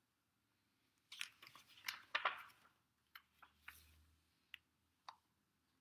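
Pages of a hardcover picture book being turned and the book handled: a few soft, crinkly paper rustles, then scattered faint taps and clicks.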